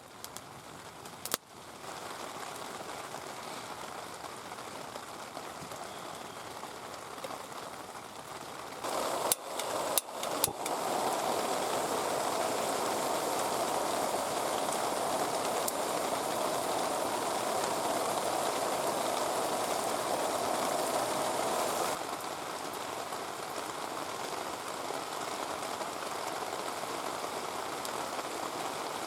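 Heavy rain falling steadily, with a few sharp knocks about a second in and again around ten seconds. The rain grows louder from about ten seconds until about twenty-two seconds, then eases back.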